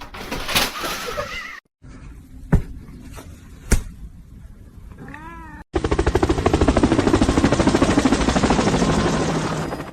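Short pet clips cut together: a cat meows once about five seconds in, after two sharp clicks. A loud, rapid rattling noise fills the last four seconds.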